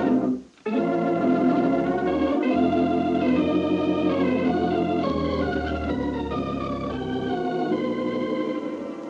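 Organ bridge music in a 1940s radio drama, marking a change of scene. Held chords, a short break just after the start, then a phrase of changing chords that fades near the end.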